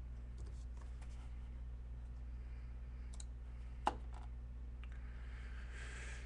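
Faint scattered clicks of a computer keyboard and mouse, with one sharper click about four seconds in, over a steady low hum.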